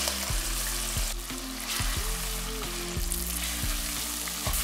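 Onion-tomato masala frying in a pot as ground coconut paste is poured in and stirred with a metal ladle: a steady sizzle from the hot pan. Soft background music with sustained low notes plays underneath.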